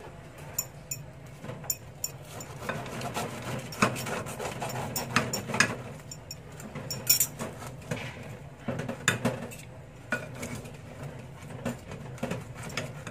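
A knife and fork cutting open a whole roast chicken in a ceramic baking dish: the metal cutlery clinks and scrapes against the dish at irregular intervals, over a steady low hum.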